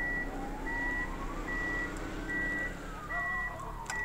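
An electronic warning beeper sounding evenly, one high beep a little more than once a second, like a vehicle's reversing alarm. Under it a fainter tone slowly rises and then falls.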